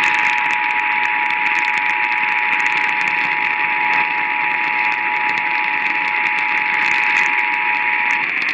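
Emergency Alert System attention signal: the steady two-tone alarm of 853 and 960 Hz sounded together, heard through a radio receiver over a loud hiss with scattered crackles. It cuts off near the end, just before the warning announcement begins.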